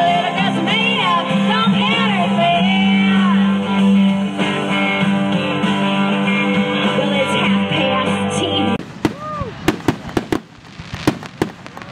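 A live band plays through PA speakers: a female singer sings over guitars. About nine seconds in, the music cuts off abruptly, and a series of sharp firework bangs and crackles follows.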